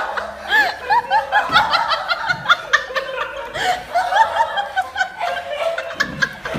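A person laughing in a quick run of chuckles and snickers.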